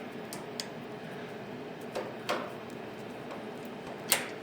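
A few sharp metallic clicks and knocks of server hardware being handled and fitted into a rack, the loudest near the end, over a steady hum.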